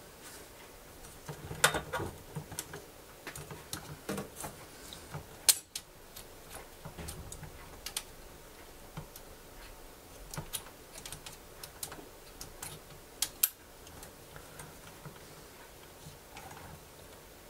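Irregular small clicks and knocks of hands handling the plastic and metal parts of a cassette deck's tape mechanism, with a few sharper clicks standing out.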